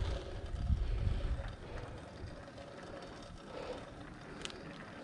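Bicycle rolling along pavement: a steady hiss of tyre and wind noise, with a low rumble of wind buffeting the microphone for the first second or so and a single sharp click about four and a half seconds in.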